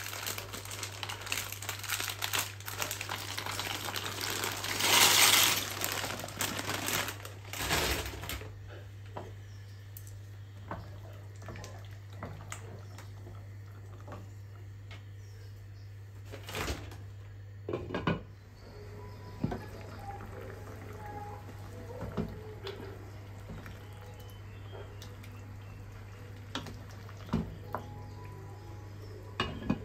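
Water running, as into a kitchen sink, for the first several seconds, loudest about five seconds in, then stopping. After that come scattered clinks and knocks of dishes and utensils over a steady low hum.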